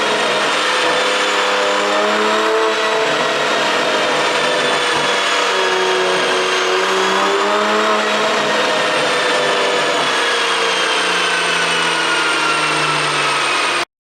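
BMW X5 xDrive40i's turbocharged 3.0-litre inline-six running under way, its engine note drifting slowly up and down in pitch with engine speed. It cuts off abruptly near the end.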